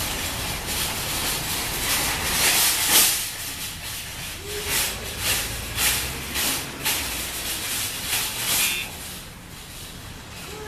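Footsteps at walking pace, about two a second, over a steady hiss; the steps run from about four seconds in to about nine seconds in.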